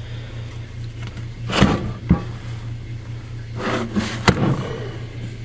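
Heavy cast compressor cylinder head being turned over on a metal workbench: a few scrapes and knocks, with one sharp clunk about four seconds in as it is set down.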